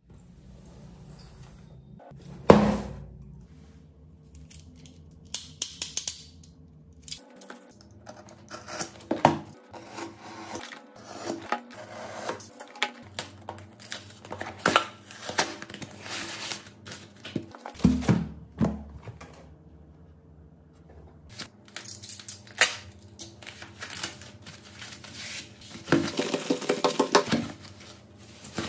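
Irregular clicks, taps and scrapes of small hand tools and parts handled on a cracked Oppo Reno 3 smartphone during a repair. There is a sharp knock a couple of seconds in and a quick run of clicks near the end.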